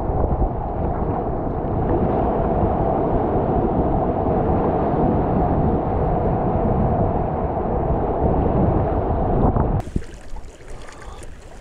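Heavy wind buffeting the microphone over waves washing around a sea kayak being paddled through choppy water, picked up from the kayak's deck. About ten seconds in it cuts off sharply to a much quieter outdoor background.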